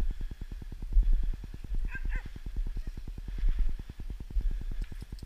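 Low rumbling and buffeting on the microphone, with a brief two-part whine from a dog about two seconds in.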